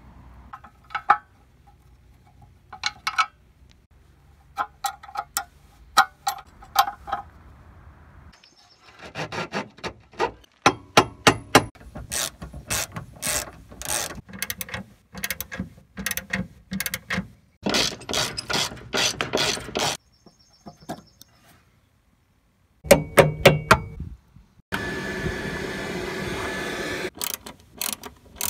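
Hand socket ratchet clicking in runs as bolts on a car's rear suspension arms are turned, broken up by several cuts with a short stretch of silence. Near the end comes a steady whirring noise lasting a couple of seconds.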